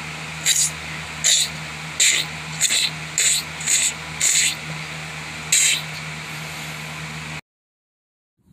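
A string of short, sharp hissing rasps, about one or two a second, over a steady low hum. The sound cuts out abruptly near the end.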